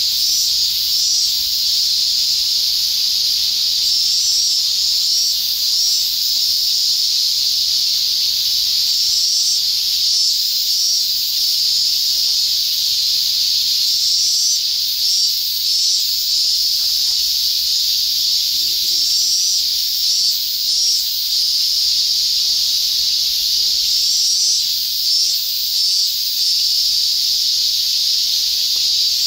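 A steady, high-pitched hiss.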